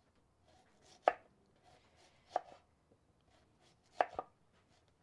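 Kitchen knife slicing a white onion into rings on a wooden cutting board: a sharp knock of the blade on the board roughly every second and a half, three times, the last one doubled.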